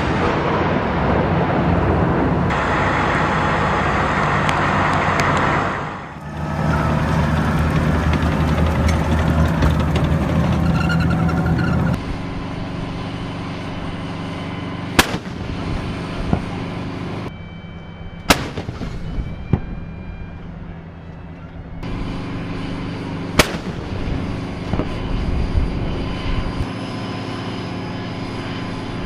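M109-type self-propelled howitzers: engines running steadily under a loud din, then a few sharp gun reports at intervals over a lower engine hum in the second half.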